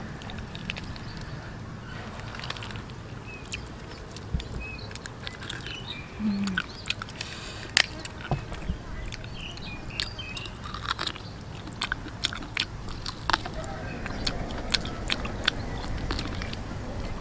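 A person chewing and biting on roasted pig's feet eaten by hand, with frequent sharp mouth clicks and smacks.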